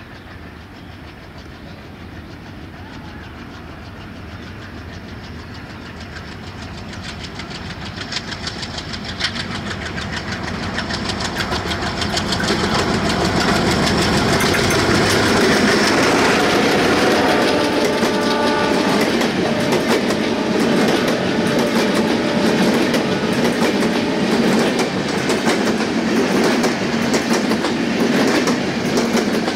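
Passenger express train approaching and running past, its wheels clattering rhythmically over the rail joints, growing steadily louder over the first dozen seconds and then staying loud. A brief pitched tone sounds about seventeen seconds in.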